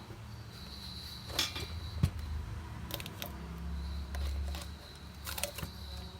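ZCUT-9 automatic tape-cutting machine at work: a low hum with a faint high whine, and a few sharp mechanical clicks spread over several seconds.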